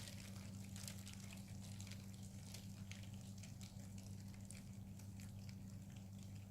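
Quiet steady low hum with faint scattered small clicks and soft wet ticks as a freshly poured acrylic canvas is turned slowly by hand.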